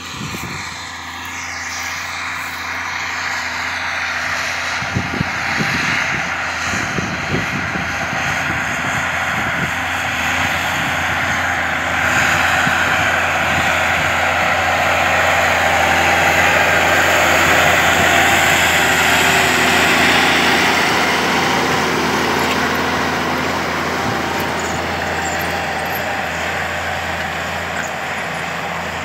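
Zanello 4200 tractor's diesel engine running steadily under load while pulling a disc harrow. It grows louder to a peak a little past the middle, then eases off.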